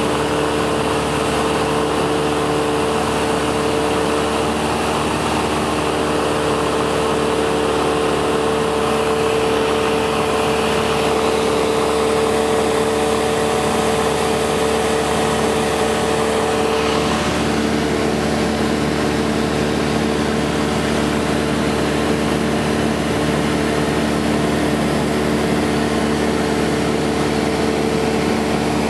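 Cessna 172 SkyHawk II's four-cylinder Lycoming engine and propeller droning steadily in cruise, heard from inside the cabin, with a slight shift in pitch about seventeen seconds in.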